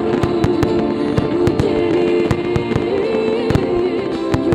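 Starmine fireworks barrage: firework shells bursting and crackling, several sharp reports a second, over loud music from the display's soundtrack. The audio is heavily distorted by clipping from an overdriven recording level.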